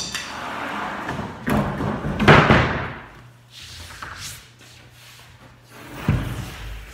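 Knocks and thuds of heavy objects being moved on a workshop floor: a sharp knock at the start, a longer scraping noise around two seconds in, and a deep thud near the end.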